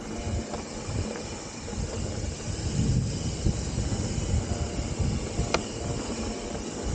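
Mountain bike ridden along a dirt trail, heard from a camera on the rider: wind rumbling on the microphone over tyre and frame rattle, with one sharp click about five and a half seconds in.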